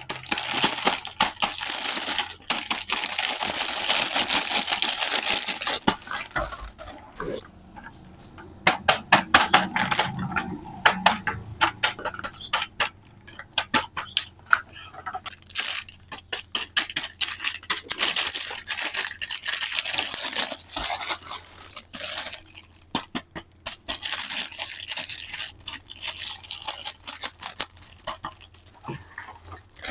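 A toy car set being unboxed: packaging rustling and tearing, mixed with many sharp clicks and clatters of small hard toy pieces being handled.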